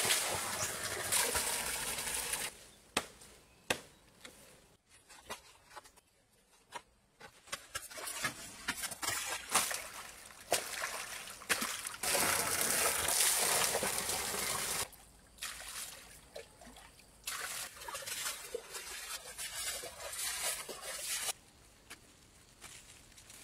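A stream of water pouring and splashing into a shallow stone-lined pond. It comes in steady stretches with scattered knocks and splashes in between.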